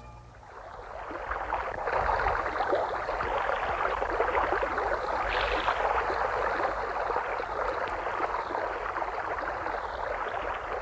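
Choppy lake water lapping and splashing in a steady rush. It fades in over the first two seconds.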